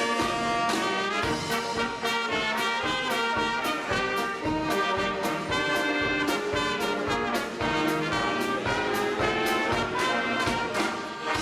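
Brass band playing, trumpets and trombones sounding over a steady drum beat of about three strikes a second; the music stops at the very end.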